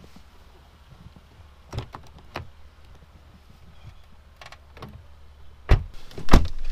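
Scattered knocks and crunches as someone walks through snow and opens a car's driver door, then two heavy thumps near the end as he gets into the seat and the Subaru Impreza's door is shut. A low steady rumble runs underneath.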